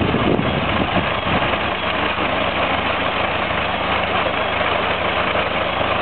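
Ford Model T four-cylinder flathead engine on a 1917 cement mixer, idling steadily.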